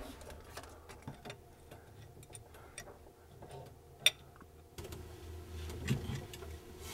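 Faint, scattered ticks and clicks of an adjustable wrench and plumbing fittings as a compression nut on plastic tubing is tightened onto a brass tee, with one sharper click about four seconds in.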